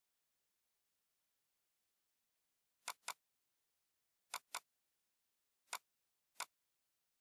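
Computer mouse button clicks in near silence: two quick double-clicks a little under a second and a half apart, then two single clicks, as files in a code editor's project tree are opened.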